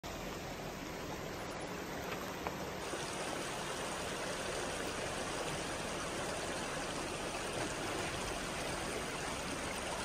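A creek flowing steadily, a continuous even rush of water.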